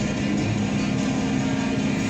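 Cat 308 excavator's diesel engine running steadily, with music playing over it.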